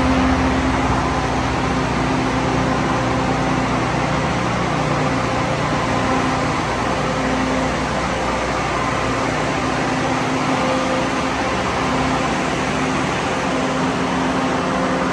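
Steady electrical hum of an energized oil-filled distribution transformer in a substation, several steady tones over an even rushing noise.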